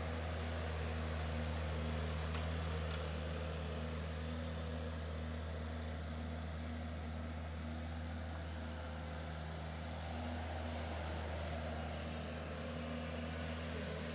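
Tennant M20 ride-on sweeper-scrubber running steadily while wet-scrubbing pavement: a constant low engine hum with an even rushing noise above it.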